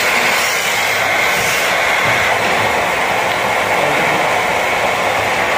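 Small electric wood lathe running while a hand-held turning chisel cuts a spinning wooden handle blank: a steady whirring, scraping cut with no pauses.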